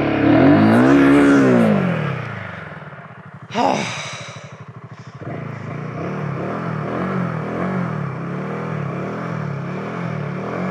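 Royal Enfield Himalayan 450's single-cylinder engine revved, its pitch swelling and falling away over the first two seconds. A short sharp sound cuts in about three and a half seconds in, and then the engine runs on with its pitch rising and falling in a steady rhythm of small blips.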